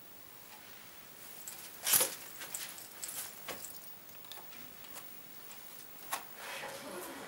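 Close handling noises of a playing card: scattered soft clicks and rustles, with one sharp loud snap about two seconds in and another smaller one about six seconds in. Music comes in near the end.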